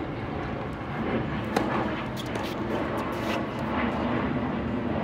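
Tennis ball struck hard with a racket about one and a half seconds in, a sharp pop, followed by a few lighter knocks and scuffs from the rally on the hard court, over a steady low rumble.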